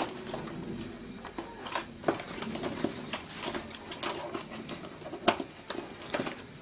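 Padded fabric seat rustling and plastic clicking and tapping as hands push and tuck the seat over the plastic knobs of a Chicco baby walker's frame; the clicks and taps come irregularly.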